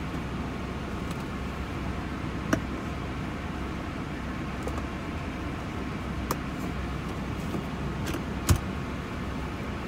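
Steady low hum inside a parked truck's cabin, with two small sharp clicks, about two and a half seconds in and near the end, as things are handled.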